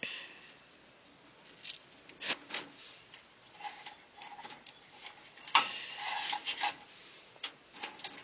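Insulated wires and plastic wire nuts handled and twisted together by hand: scattered light clicks and rubbing, with a sharper click a little over two seconds in and a brief spell of rustling about five and a half seconds in.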